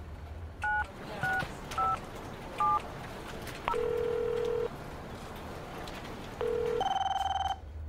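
Four short keypad tones as a number is keyed on a mobile phone, followed by a steady ringing tone heard twice on the line, the first about a second long. Near the end comes a short, brighter electronic ring.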